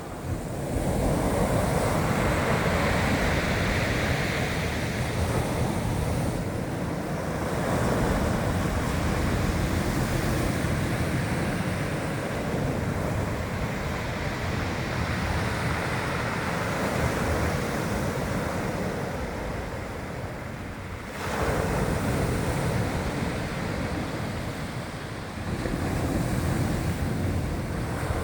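Rough sea surf breaking on the shore: a continuous rush of water that surges suddenly four times as waves crash in, with wind buffeting the microphone.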